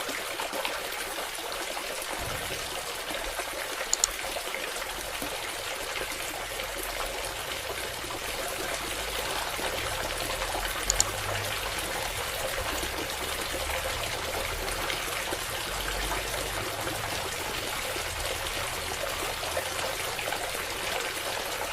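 Water trickling and pouring in a steady stream, with two faint clicks, about four and eleven seconds in.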